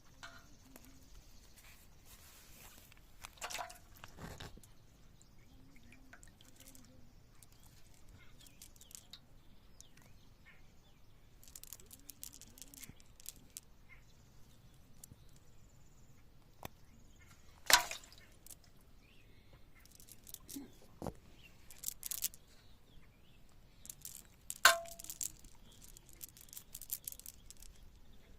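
Intermittent small water splashes and drips with scattered sharp knocks, and two louder sharp hits in the second half.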